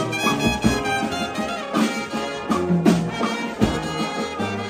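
Instrumental music with brass instruments.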